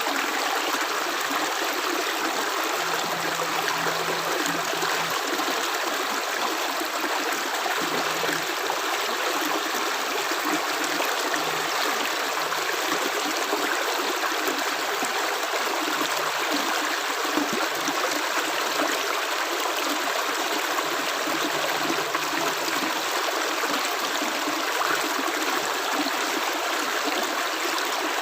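Running water of a stream: a steady, even rush with no single drops standing out.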